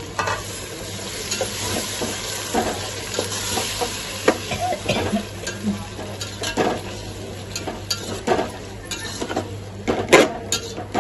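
Green masala paste sizzling as it fries in oil with onion and tomato in a large metal pot, while a metal spoon stirs it, scraping and knocking against the pot. The sizzle is strongest in the first few seconds, and the loudest knock comes near the end.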